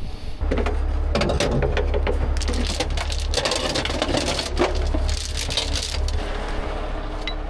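Steel rigging chains and hardware clinking and rattling in quick, irregular strikes as they are handled, over the steady low drone of the heavy rotator tow truck's running engine. The clinking stops about six seconds in.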